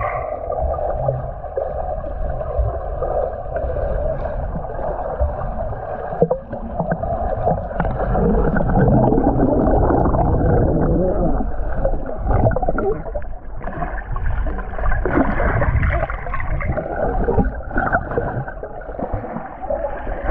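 Swimmers kicking and diving in a pool, heard underwater: a dense, muffled churning and bubbling from their kicks and exhaled air.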